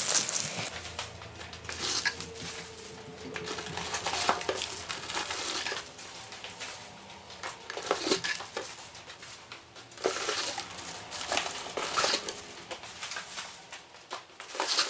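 Plastic one-quart nursery pots being handled and set down while unpacking potted saplings: irregular clatters and knocks over rustling.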